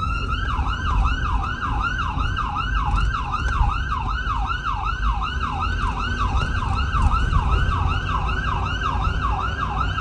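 Ambulance electronic siren on yelp, heard from inside the cab: a fast rise-and-fall wail, about three sweeps a second, over a steady low engine and road rumble. Right at the start it switches over from a slower wail.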